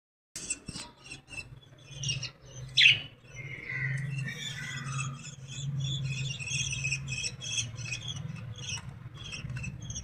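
Young birds calling in many short, high-pitched cheeps and squeaks, with one louder call about three seconds in, over a steady low hum.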